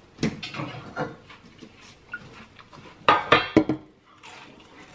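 Metal kitchen pots clattering on a stove top: a few light knocks, then a louder burst of clanking with some ringing about three seconds in.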